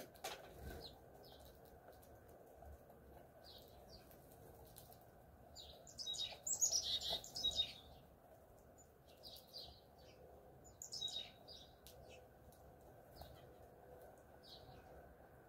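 Small songbirds chirping in short, quick bursts, busiest and loudest about six to eight seconds in, with another cluster of chirps around eleven seconds.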